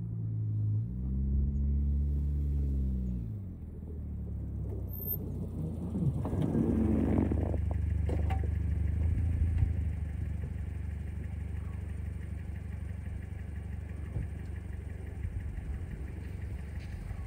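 Car engine revving up and falling back, then a rougher surge with the wheels spinning as the car slides in snow, before it settles to a steady low running.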